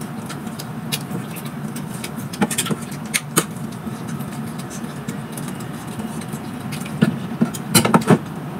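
Metal ladle clinking and scraping against a steel cooking pot, with the pot lid handled, as stew is served onto rice: a few short, sharp clinks spread through, with a cluster near the end. Underneath runs a steady low hum.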